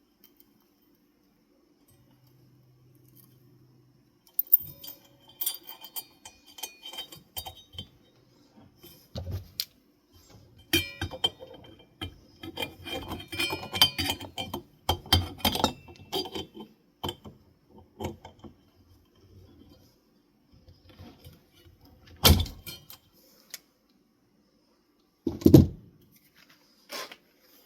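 Metal ceiling fan parts and wiring being handled, with irregular clinking, rattling and rustling and two louder knocks near the end.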